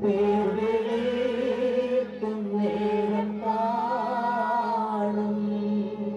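Mourners singing a Malayalam funeral hymn together, men's voices in unison drawing out long held notes, led by one singer on a microphone.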